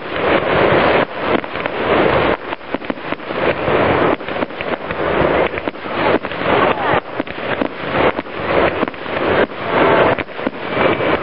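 Fireworks display: aerial shells bursting one after another amid dense popping and crackling, the loudness swelling and dropping again and again.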